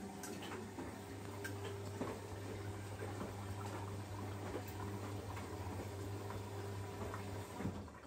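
Siemens front-loading washing machine running a wash cycle: a steady motor hum with water sloshing and scattered clicks from the tumbling drum. The hum cuts off shortly before the end.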